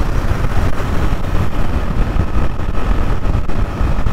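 Bajaj Platina 110 motorcycle's single-cylinder engine running steadily while the bike cruises, heard through a dense, even rush of wind and road noise.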